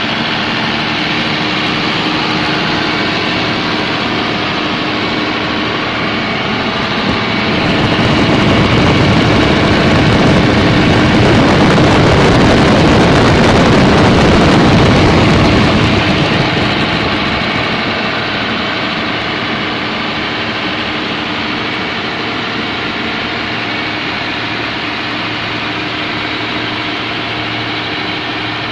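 Komatsu SA6D110 six-cylinder diesel engine of a 130 kVA open-frame generator set running steadily on test. In the middle it grows louder with a broad rushing noise for about eight seconds, then settles back to its steady running note, with no change in engine pitch.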